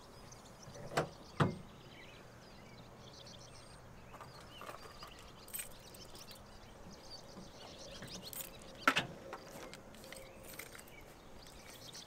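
Knocks and clunks from a pickup's rear topper hatch and truck bed as the hatch is opened and gear is stowed: two knocks about a second in and a louder one near the end, over faint bird chirps.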